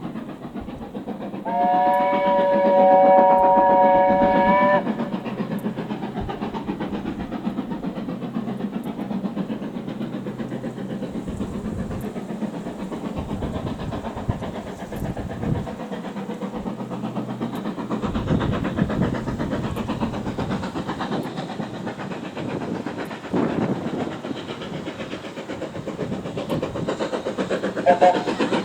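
Steam locomotive whistle sounding for about three seconds, several notes at once in a chord, followed by the steady rumble and clatter of the train running. A brief faint whistle blip comes near the end.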